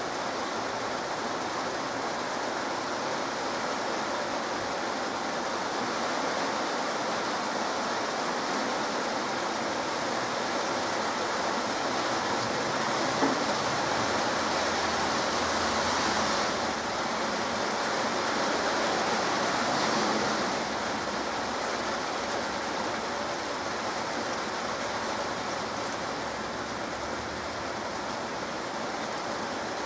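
Heavy rain falling: a steady hiss of rainfall that swells a little around the middle.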